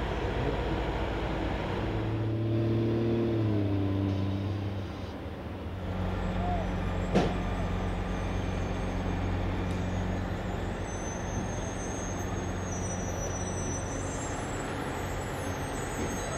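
Diesel engines of heavy military recovery trucks running steadily, the engine note dropping slightly a few seconds in. There is a single sharp knock about seven seconds in.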